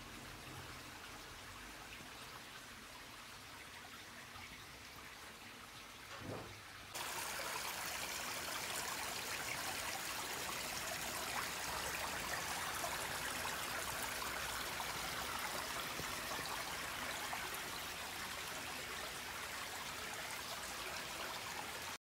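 Water of a small ditch stream babbling steadily over stones. It sounds dull and quieter at first, then turns suddenly louder and clearer about seven seconds in.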